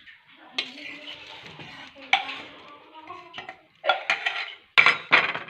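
Kitchen utensils clattering and scraping against a bowl: several sharp knocks spread out, the two loudest close together near the end.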